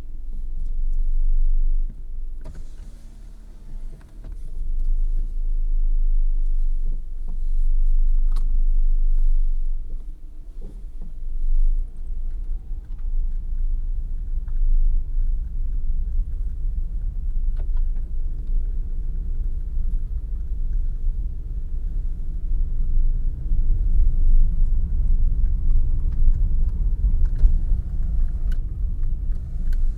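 Car driving along a road: a low, steady rumble of road and engine noise that swells and dips with the road, with a few sharp clicks or knocks scattered through it.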